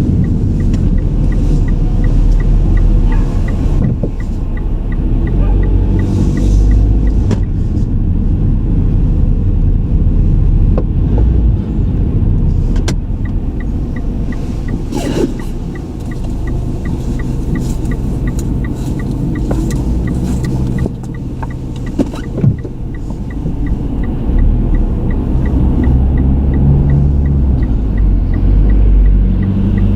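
A car driving on city roads, heard from inside: a steady low engine and road rumble, with a few short sharp knocks.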